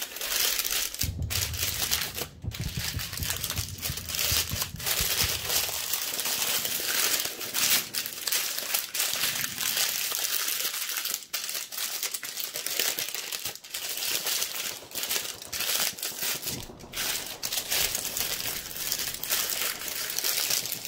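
Stiff brown wrapping paper crinkling and crumpling as hands fold and press it tight around a filter canister, with a few brief pauses.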